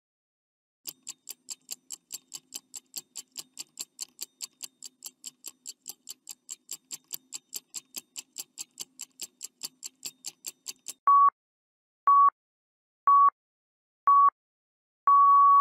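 Quiz countdown-timer sound effect: a clock ticking about four times a second for some ten seconds, then four short beeps a second apart and a longer final beep as the time to answer runs out.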